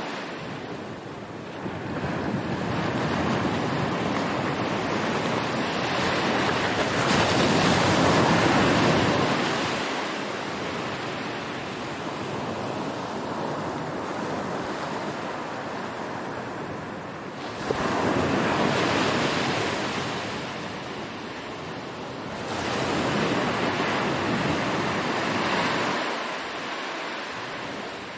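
Sea waves breaking and washing ashore in slow surges, each swell building and then receding, with the sound fading out near the end.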